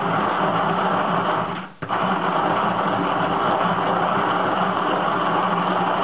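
A 1950s–60s Armin Trösser Mokka hand-cranked conical burr coffee grinder grinding coffee beans on its finest setting. It is a steady, dry grinding with a short break just under two seconds in.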